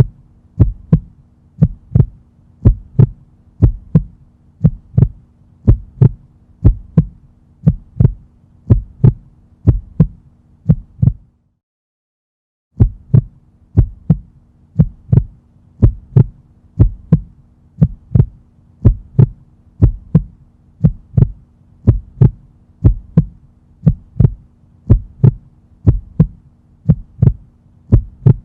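Heartbeat sound effect: a steady run of paired lub-dub thumps, roughly one beat a second, over a faint hum. Near the middle it cuts to silence for about a second and a half, then the beating resumes.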